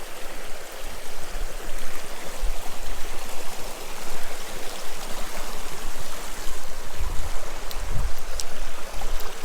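River water rushing steadily, with a few low bumps near the end.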